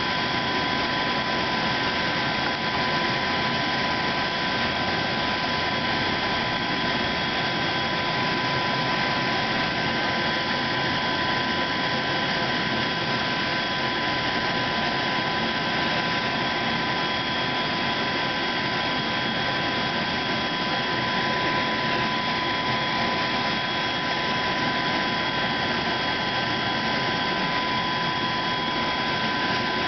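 Jet turbine running steadily at idle: an even rush of noise with several constant high-pitched whining tones, unchanging throughout.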